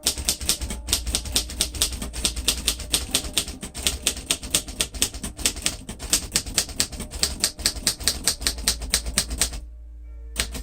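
A 1947 Royal Quiet Deluxe manual typewriter being typed on in a steady, quick run of key strikes, several a second. The typing stops shortly before the end, and one last key strike follows.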